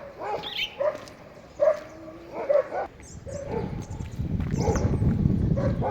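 An animal's short calls, repeated about once or twice a second, with a low rumble coming in about halfway.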